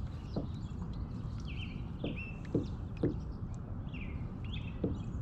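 A songbird giving short, falling chirps several times over low wind rumble on the microphone, with a few soft knocks.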